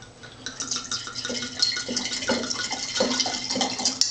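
Red wine pouring from a bottle into a wine glass with an uneven glugging, starting about half a second in and stopping near the end, followed by a short sharp click.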